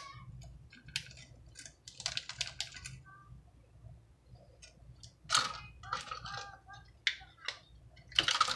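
Light clicks and short crinkly rustles of plastic toy-kit packaging being handled and snipped with scissors, with louder rustles about two, five and eight seconds in.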